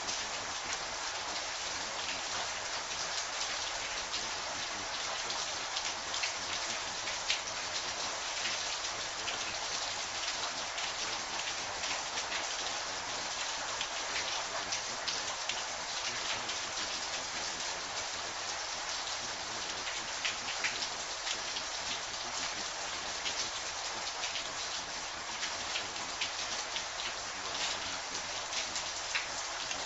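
Steady rain: an even hiss with many short, sharp drop hits scattered through it.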